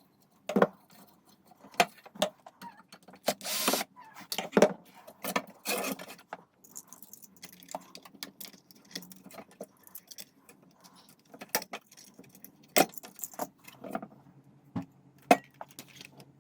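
Irregular clicks, knocks and brief metallic rattles of small parts and tools being handled while working on a hi-fi unit, with a couple of short scraping or rustling bursts.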